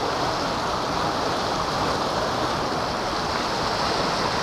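Shallow mountain creek rushing over rocks close by: a steady, even rush of water.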